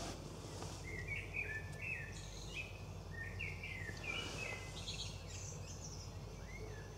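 Dawn chorus of songbirds: many short, faint chirps and trills from several birds overlapping, with no pause.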